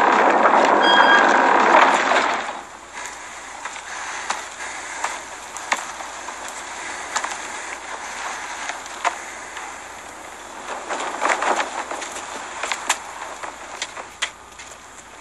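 A loud, dense rush of sound cuts away about two seconds in, leaving a low steady hiss broken by scattered sharp clicks and clinks, like armour and gear shifting, thickest near the end.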